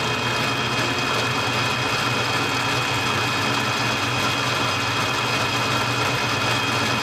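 Benchtop mini lathe running under power, its motor and gear train giving a steady whine over a low hum as the tool is fed into the spinning workpiece.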